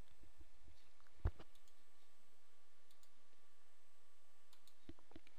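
A single sharp click about a second in, with a few faint ticks later, over a steady low hiss of room noise.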